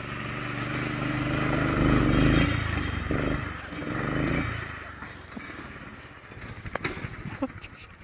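Remote-controlled go-kart's small engine running under throttle, getting louder to a peak about two seconds in, swelling once more, then fading away past the halfway point.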